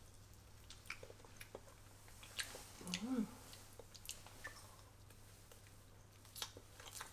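A person chewing a mouthful of soft butternut squash pancake, with small wet mouth clicks. About three seconds in comes a short hummed "mm" of enjoyment.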